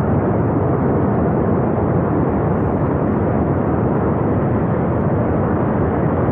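Loud, steady rush of a river in flood: a continuous deep roar of fast-flowing floodwater.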